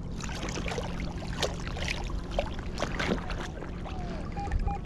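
Sand scoop being shaken and sifted in shallow river water: irregular splashing, sloshing and dripping, over a steady low hum. Two short faint tones come near the end.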